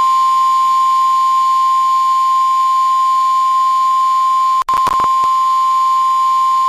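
NOAA Weather Radio's single-pitch 1050 Hz warning alarm tone, held steady. It is the alert signal that comes before a severe thunderstorm warning is read. About two-thirds of the way through, the tone briefly breaks up with a crackle.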